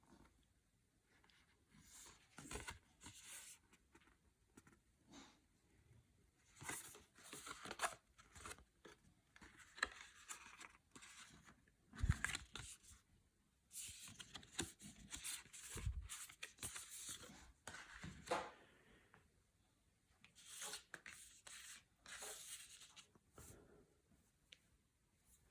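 Faint, scattered tearing and rustling of packaging being handled and opened, with two soft knocks about halfway through.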